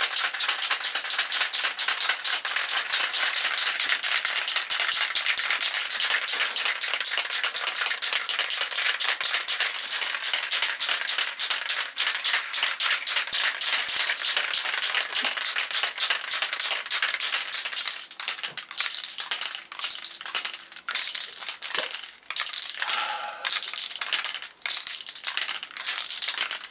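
Aerosol spray can of clear lacquer being shaken, its mixing ball rattling fast and continuously to mix the paint before spraying. About 18 seconds in, the rattling breaks up into short, scattered bursts.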